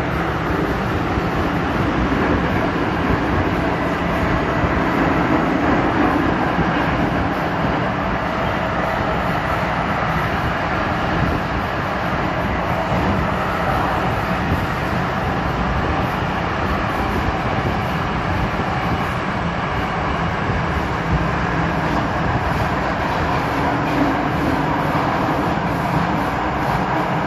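MTR M-Train electric multiple unit running through a tunnel: a steady rumble of wheels and running gear, with a faint wavering drone coming and going.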